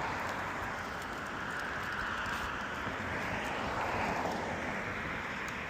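Steady street traffic noise, swelling slightly as a vehicle passes about three to four seconds in.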